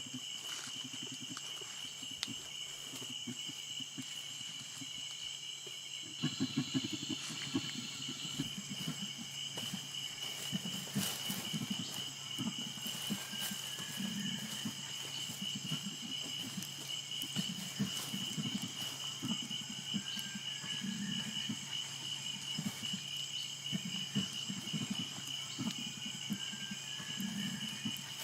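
Tropical forest ambience: a steady, high insect drone with occasional bird calls over it. From about six seconds in, a low sound pulses every second or two.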